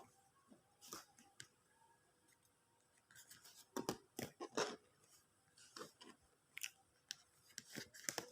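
Scattered light clicks, taps and short scrapes of small-device handling, irregular, growing busier from about three seconds in.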